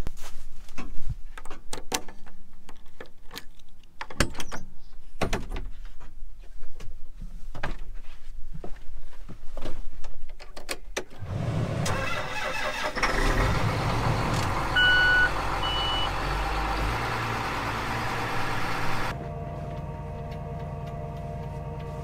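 Footsteps crunching over frozen, frosty corn stalks, then about halfway through a large tractor's engine cranks and starts on a cold morning and runs, with two short warning beeps from the cab. Near the end the sound cuts to a quieter, steady hum.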